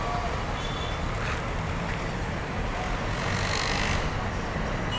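Heavy street traffic: a steady rumble of buses, jeepneys, cars and motorcycles, with a hissing swell about three seconds in.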